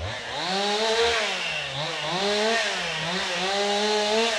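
Chainsaw engine running and being throttled up and down three times, its pitch rising and falling with each pull of the trigger.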